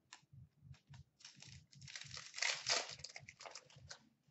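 A trading-card pack's wrapper crinkling as it is torn open and handled: a few light clicks, then about three seconds of dense crinkling, loudest in the middle.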